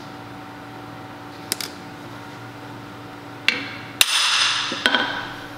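Light metallic clicks and a few sharp knocks against a bare cast-iron Ford 460 engine block during cam bearing installation. The loudest knock comes just after four seconds in and rings on briefly, all over a steady shop hum.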